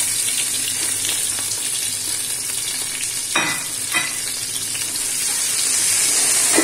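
Chopped onion, tomato, green chillies and ginger sizzling in hot oil in a pot, a steady hiss, while a wooden spatula stirs them. Two sharp clinks come a little past halfway, about half a second apart.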